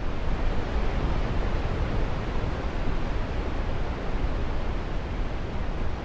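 Steady rush of a large waterfall: an even, continuous noise of falling water with no pauses or distinct splashes.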